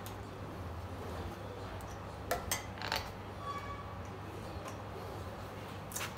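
A few sharp metallic clicks and clinks as hand tools and the compression-gauge hose fitting are handled on the cylinder head of a 2.7-litre V6 turbodiesel, over a steady low hum. Three clicks come close together around the middle and one more near the end.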